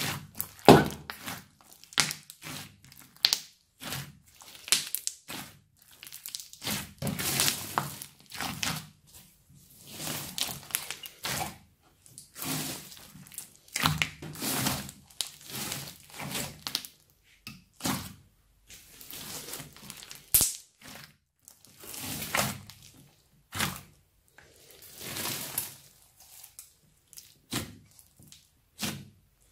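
Hands squeezing, stretching and folding a big mass of slime mixed with foam beads: irregular sticky squelches and crackles, broken by sharp clicks and pops as the slime pulls apart.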